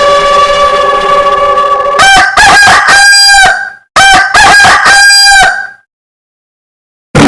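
A rooster crowing twice, each crow lasting under two seconds, the first about two seconds in and the second about four seconds in. Before them, a steady honking tone runs on and breaks off about two seconds in.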